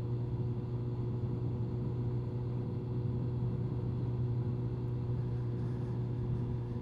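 2002 Honda CBR1100XX Blackbird's inline-four engine running at a steady cruising speed, a steady low drone with road and wind noise. It is heard from a lavalier mic inside a full-face helmet, so it sounds muffled.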